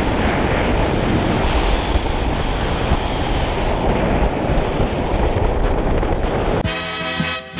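Loud, steady rushing noise of wind buffeting the microphone, with no clear engine note. Near the end it cuts off suddenly and swing music with a beat starts.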